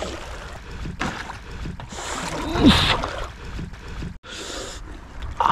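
Water splashing and sloshing as a person wades through cold, shallow water, the feet stirring up the silty bottom.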